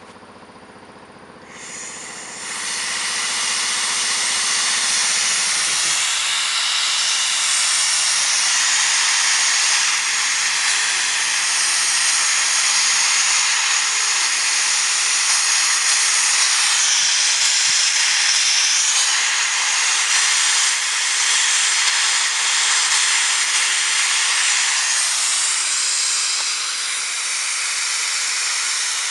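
Compressed air hissing steadily from an Armour 5-gallon paint pressure pot's air-driven agitator, which does not spin. The hiss starts about two seconds in, with a low hum under it for the first few seconds.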